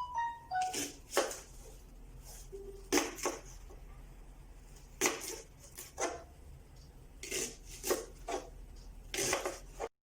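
Large kitchen knife slicing through leeks and striking a cutting board, in irregular strokes that often come in pairs, about a dozen in all.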